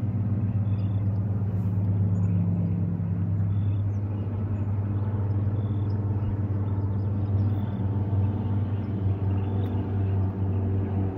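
A steady low hum of an engine running, with a few faint ticks over it.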